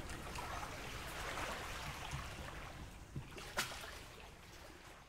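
Small lake waves lapping and trickling at the shore, with a sharp knock a little after three seconds in; the sound fades out toward the end.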